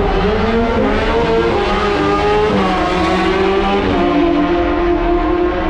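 Several supercar engines revving hard together as the cars pull away, their notes overlapping. The pitch climbs and drops back a couple of times as they shift up, then holds steadier near the end.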